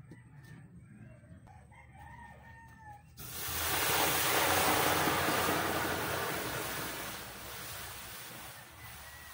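Water poured from a plastic jug into a hot steel wok over a wood fire, hissing as it hits the hot metal. The hiss starts suddenly about three seconds in, is loudest at first and eases off over a few seconds as the pouring goes on.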